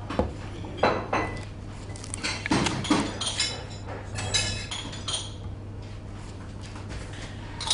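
Scattered short clicks, clinks and rustles over a steady low hum.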